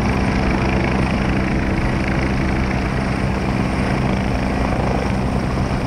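Mi-8-type helicopter close by, its rotors and engines running steadily as it flies low to land.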